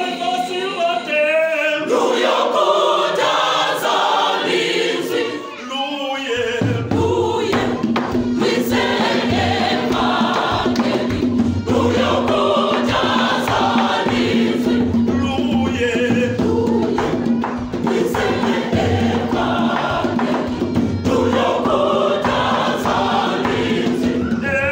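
Mixed choir of men and women singing a gospel song in parts. About six seconds in, tall wooden hand drums come in under the voices with a steady beat.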